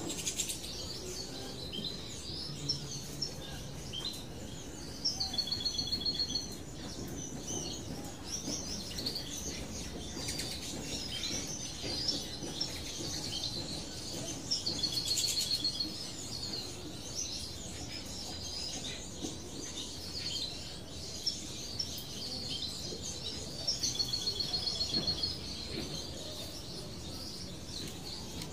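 Small songbirds chirping and twittering continuously, with a fast rattling trill of about a second repeated three times, about five, fifteen and twenty-four seconds in.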